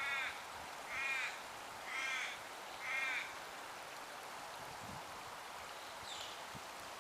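A crow gives four harsh caws about a second apart, then a faint, higher call comes near the end, over a steady background hiss.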